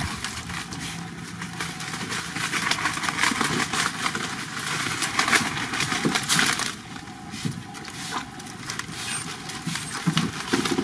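Dog paddling through shallow, weedy water: a dense crackle of small splashes and rustling twigs and plants.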